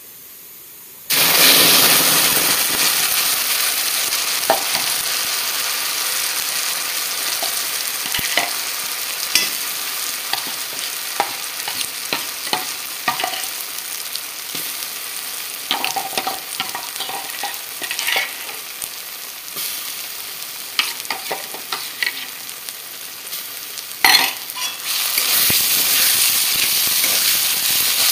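Ground chutney paste going into hot oil and tempered spices in a metal kadai. A loud sizzle starts suddenly about a second in and slowly dies down, with a flat spatula scraping and clicking against the pan as it is stirred. Near the end there is a knock and the sizzle picks up again.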